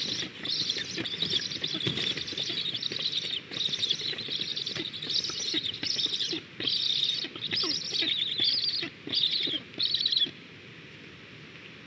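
Black stork nestlings begging at the nest: high calls repeated in a fast run, breaking into short separate bursts and stopping suddenly about ten seconds in, mixed with wing flapping and low knocks.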